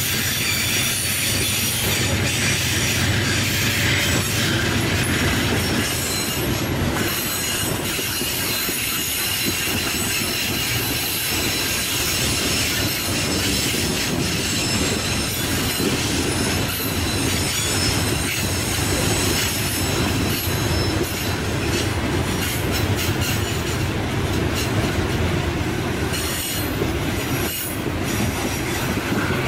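Freight train passing: the low rumble of the lead diesel locomotives in the first few seconds, then a long string of hopper wagons rolling by with steady metallic wheel squeal on the curve and some clickety-clack over the rail joints.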